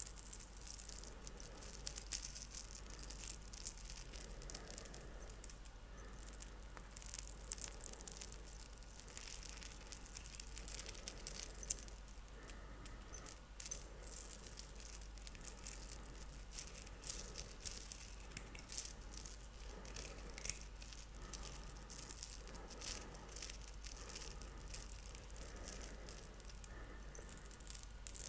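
Rosary beads trickling and clicking as the strand is lowered into a cupped palm close to the microphone: many small, irregular rattling ticks.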